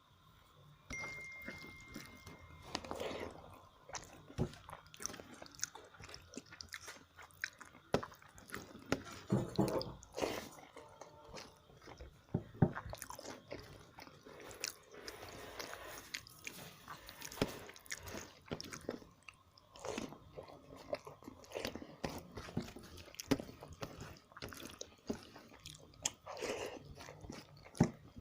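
Close-up chewing and wet mouth sounds of a person eating a meal of rice and curries, with scattered small clicks and taps.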